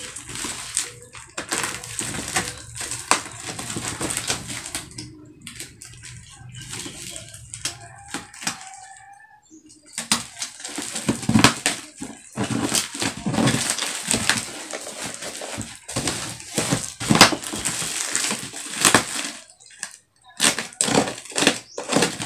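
Plastic parcel wrapping crinkling and crackling as it is sliced open with a utility knife, in short irregular bursts of scraping and rustling. Quieter and sparser in the first half, then louder and busier from about halfway.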